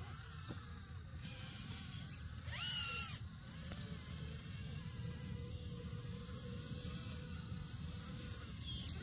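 Small electric motors and gears of 1/10-scale RC rock crawlers whining faintly as the trucks creep over rocks. The whine rises and falls briefly about two and a half seconds in, and a short high-pitched sound comes near the end.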